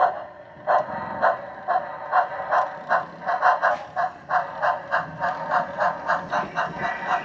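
O scale model steam tank locomotive's onboard sound system chuffing steadily, about four exhaust beats a second, heard thin and narrow through its small speaker.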